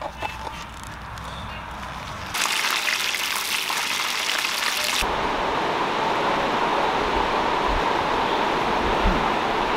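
Banana-leaf parcels of karimeen (pearl spot fish) sizzling in hot oil in a pan, the sizzle starting suddenly a couple of seconds in after a quiet start with a few soft crackles of banana leaf being folded. About five seconds in it gives way to a duller, steady hiss.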